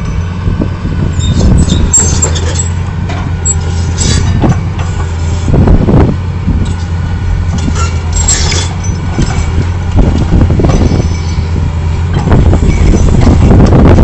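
Caterpillar hydraulic excavator's diesel engine running steadily as its bucket breaks into a building's masonry wall, with scattered knocks and crashes of breaking masonry. It grows louder and busier near the end.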